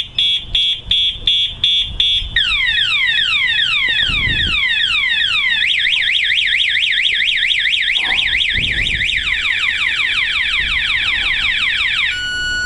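Spy 5000M motorcycle alarm siren going off in full alarm mode and cycling through its tones: quick high beeps about three a second, then repeated falling whoops, then a fast warble, switching to an alternating two-tone near the end.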